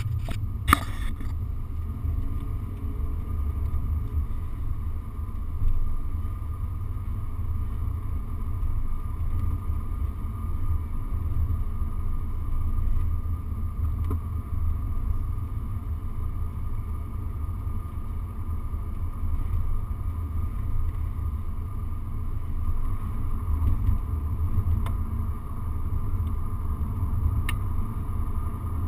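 Car interior noise while driving slowly: a steady low rumble of the engine and tyres on the road, heard from inside the cabin. A single sharp knock sounds about a second in.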